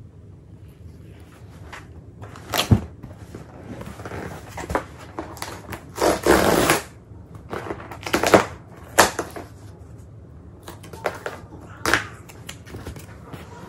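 Corrugated cardboard shipping box being torn open by hand: the perforated tear strip is ripped along the box in short rasps and scrapes, with a longer tearing rasp about six seconds in and sharp knocks of cardboard between.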